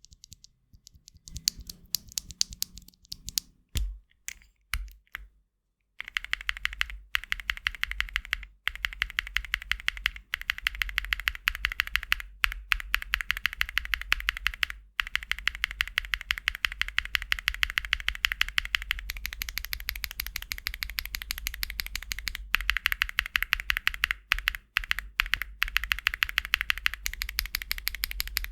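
Mechanical keyboard with SW x Gateron Deepping linear switches (pre-lubed, nylon housings, POM stems) being typed on: a few separate keystrokes at first, then about six seconds in, rapid continuous typing.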